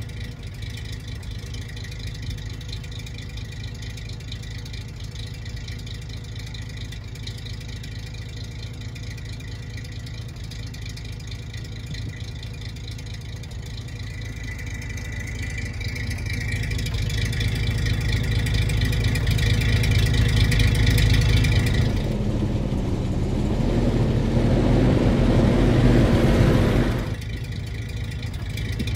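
1945 Mack NO 7.5-ton prime mover's six-cylinder gasoline engine running as the truck drives, growing louder as it draws near. About three quarters of the way through there is a louder stretch with a rising engine note, which cuts off suddenly near the end.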